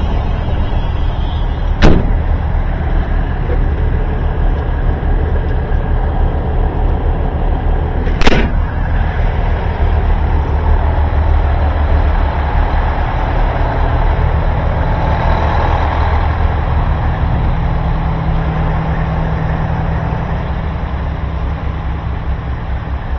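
Semi truck diesel engine idling steadily, a deep rumble that eases slightly near the end. Two sharp knocks cut through it, about two seconds in and again about eight seconds in.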